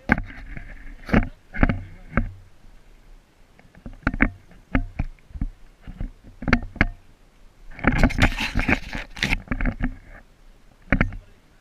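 Irregular sharp clicks and knocks, with a dense, noisy clatter lasting about two seconds that starts about eight seconds in, over a steady low hum.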